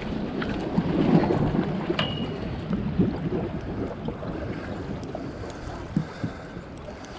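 Wind buffeting the microphone over water washing against shoreline rocks, with a few small knocks.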